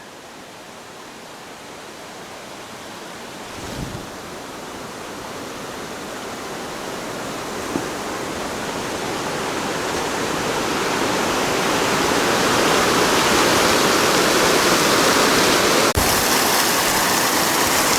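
A waterfall's rushing water, a steady roar that grows gradually louder throughout, with a faint knock about four seconds in and a brief click near the end.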